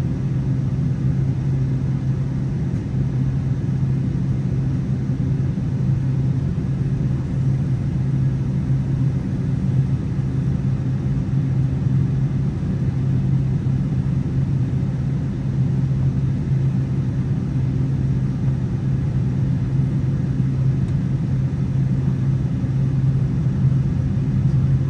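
Boeing 747-8 cabin noise with the GEnx engines at idle: a steady low drone with a constant hum, unchanging throughout.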